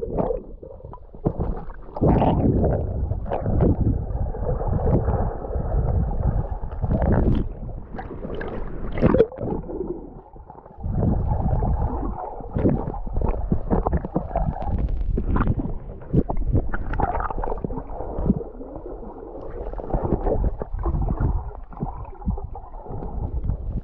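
Muffled water sloshing and gurgling around an action camera held in the water, dipping under and breaking the surface, with irregular knocks from the camera and the swimmer's movements.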